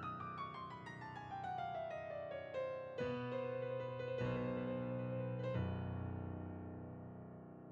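Background piano music: a quick run of notes falling in pitch, then three held chords that die away.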